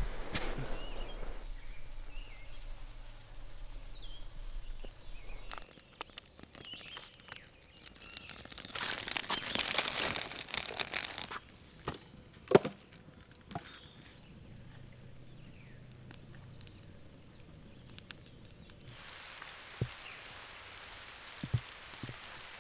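Campfire camp sounds: a couple of sharp knocks as split firewood is laid on a burning campfire, after a loud hiss lasting two or three seconds. Near the end a soft, even patter of light rain on the lake begins.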